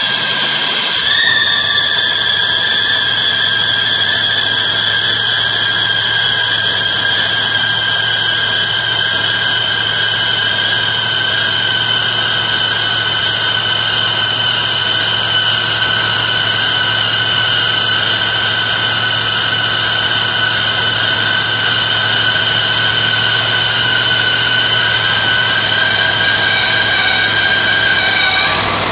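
Rebuilt engine running on a test stand with a loud, high-pitched whine over it; the whine dips briefly about a second in, then slowly drops in pitch and stops near the end, leaving the engine running at idle.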